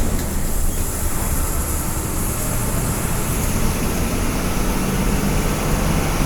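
Cabin noise inside a moving intercity bus: a steady engine drone with road and tyre noise.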